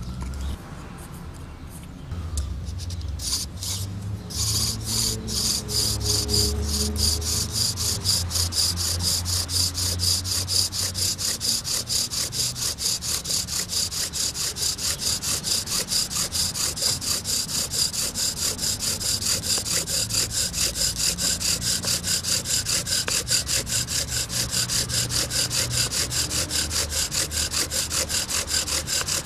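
Bow drill in use: a wooden spindle spun back and forth by a corded bow, grinding in the notch of a wooden hearth board with a rasping squeak on each stroke. It starts with a few slow strokes, then settles into a quick, even rhythm from about four seconds in, drilling out the hot wood dust that builds into an ember.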